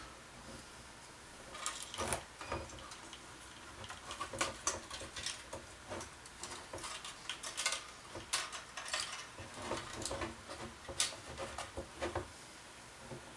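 Plastic bezel and housing parts of an HP 24ES monitor being handled and fitted back together: an irregular scatter of small clicks, taps and scrapes, starting about a second and a half in.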